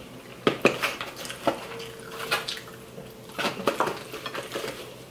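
Forks clinking and scraping on plates, with a plastic takeout bowl handled and set down on a glass tabletop: a scatter of light clicks and knocks.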